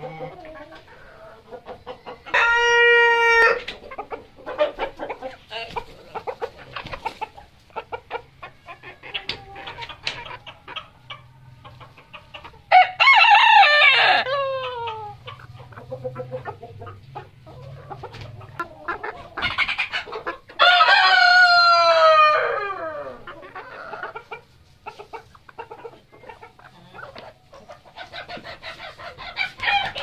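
A flock of chickens clucking throughout, with a rooster crowing twice, once about 13 seconds in and again about 21 seconds in, each crow trailing off downward. A loud, short, level call comes about two and a half seconds in.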